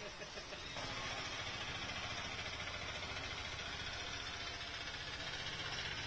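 Heavy cyclone rain hissing steadily, growing louder about a second in, over a low, fast, even rumble.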